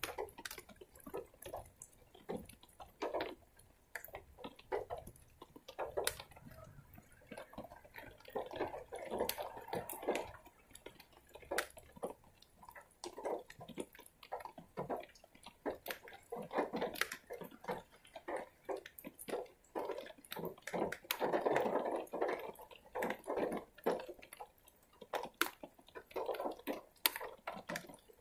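Rainwater dripping: irregular drops landing close by, one at a time and now and then in quick clusters.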